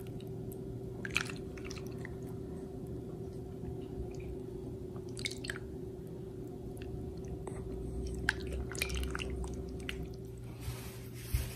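Quiet serving sounds: vegetable broth ladled onto sliced lontong, with a few light clicks and soft wet squishes spread through, over a steady low hum.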